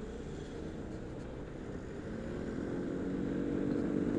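Yamaha XMAX 300 scooter's single-cylinder engine running under way, over a steady hiss of rushing air. The engine note rises over the last two seconds as the scooter speeds up.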